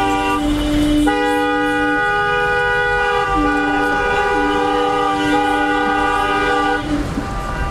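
Car horns held in long, steady blasts, two or more at different pitches sounding together, with short breaks about half a second in and near the end.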